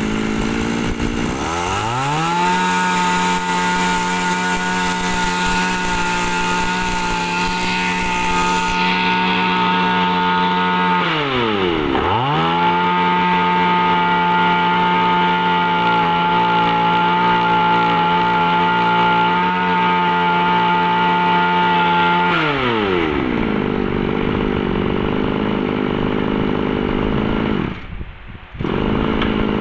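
Komatsu Zenoah BC2300 brush cutter's 23cc two-stroke engine, revved up from idle and held at full throttle for about ten seconds. It drops back briefly to idle, is held high again for another ten seconds, then idles for a few seconds and is cut off near the end.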